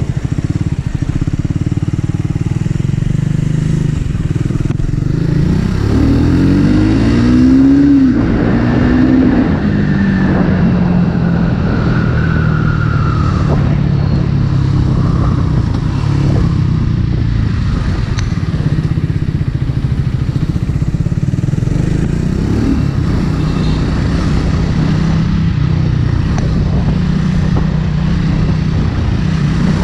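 Triumph Speed 400's single-cylinder engine and exhaust under way on a ride: it accelerates about six seconds in, pitch climbing and dropping with the revs, then runs at a steady pace.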